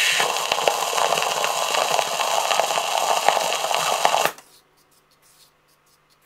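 Surface hiss and crackle of a bootleg 78 rpm record as the stylus runs on after the song ends, cutting off suddenly a little over four seconds in when the player is stopped. Near silence follows, with a few faint ticks.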